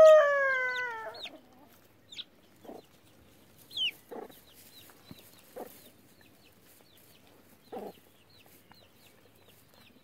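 The end of a rooster's crow, its long last note falling in pitch and dying away about a second in, followed by a few short, widely spaced hen clucks and faint high chick peeps throughout.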